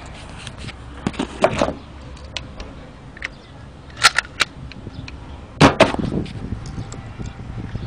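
Handling noise from a phone being moved about: scattered sharp clicks and short rustling knocks, in three louder clusters about a second, four seconds and nearly six seconds in.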